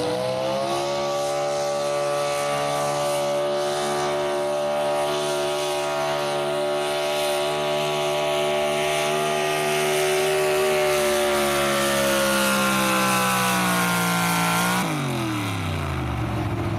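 Square-body Chevrolet altered stock pickup's engine held at high revs under full load while pulling the sled, its pitch sagging a little as the pull bogs down. About 15 seconds in the revs drop sharply as the driver lets off, and the engine settles toward idle.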